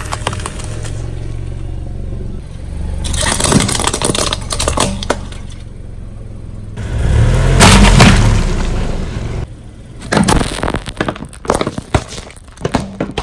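A car tyre rolling slowly over objects and crushing them: brittle plastic cracking and snapping in quick clusters, with one loud low thump and crunch about seven seconds in, the loudest moment.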